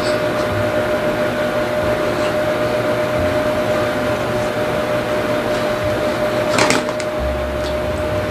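Steady machine hum with one constant tone, under a person biting and chewing a chicken sandwich; a brief rustle about six and a half seconds in.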